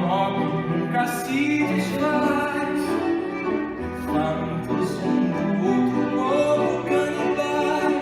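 Music from a song, with bowed strings.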